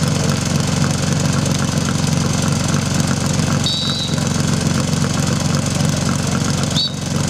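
Portable fire pump's engine running at a steady idle, a loud continuous hum. Two brief high chirps cut through it, one about halfway through and one near the end.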